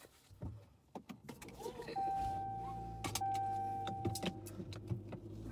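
A car being started: a few clicks and rustles, then about two seconds in the engine starts and settles into a low idle. Over the start, the car's electronic chime sounds as one steady tone in two long beeps with a short gap between them.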